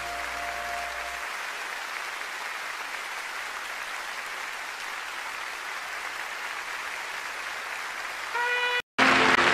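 Audience applause, an even clapping hiss, as the last held notes of a song die away in the first second. Near the end a brief chord sounds, the sound cuts out for a split second, and the next song's instrumental intro begins.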